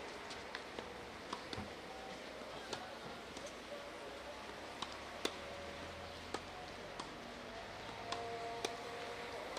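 Tennis balls struck by rackets and bouncing on a clay court during a rally: a dozen or so short, sharp pocks at uneven spacing, over faint background voices.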